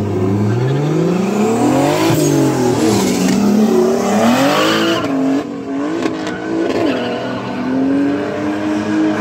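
Drift cars' engines revving hard while sliding through a corner, with tyre squeal. The engine pitch climbs over the first two seconds, then rises and falls with the throttle, and holds a steadier high note near the end.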